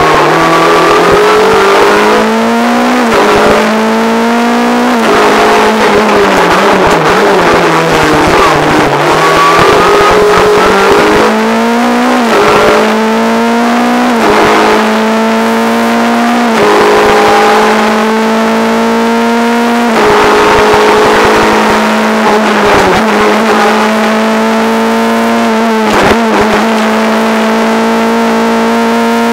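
Renault Clio R3 rally car's 2.0-litre four-cylinder engine, heard from inside the car, revving hard through the gears: the pitch climbs and then drops sharply at each gear change or lift, about ten times.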